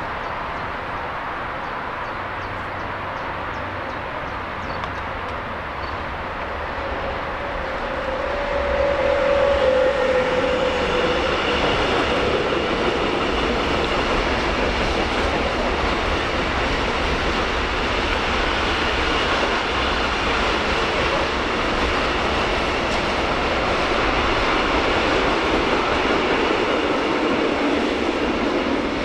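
A freight train of container and tank-container wagons rolling past on the rails, with steady wheel rumble and clatter. It grows louder about a quarter of the way in as the train draws close, with a brief whine as the front passes.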